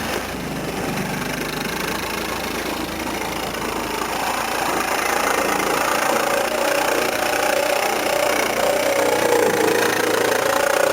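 A motor running steadily, growing gradually louder, with a steady hum coming in about halfway.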